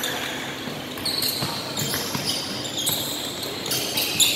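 Basketball bouncing on a hardwood gym floor as it is dribbled: a few dull thuds, with a louder knock near the end, echoing in a large gym.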